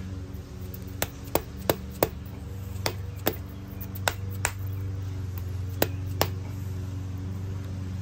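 Mallet tapping a double-roller timing set's cam and crank sprockets onto the snouts of a Ford 302 small-block, driving the two gears on together: about ten sharp taps, mostly in pairs, stopping a little after six seconds. A steady low hum runs underneath.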